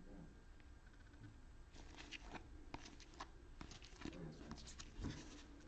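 Faint clicks and slides of glossy trading cards being moved one by one in gloved hands, starting about two seconds in and going on as a loose string of small ticks and scrapes.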